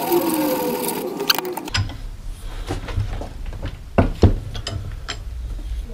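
Hand tools working a steel rod clamped in a bench vise. A noisy scraping runs for the first second and a half or so, then comes a run of sharp metal clinks and knocks, the loudest about four seconds in.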